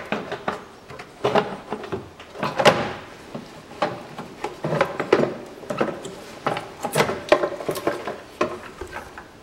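Air-intake duct being worked loose and pulled out of an engine bay by hand: irregular knocks, clatters and scrapes of the duct against surrounding plastic parts.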